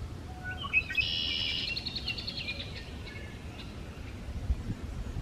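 Male red-winged blackbird singing once: a few short notes, then a buzzy trill lasting about two seconds. A few low thumps near the end.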